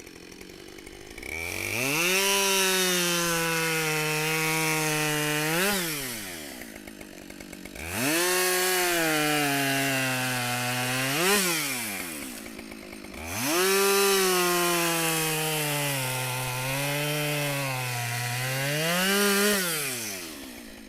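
Husqvarna 572XP two-stroke chainsaw with a 28-inch bar making three bucking cuts through black locust. Each time it revs up, runs a little lower in pitch while the chain is in the wood, then climbs sharply as the cut breaks through, and drops back to idle between cuts.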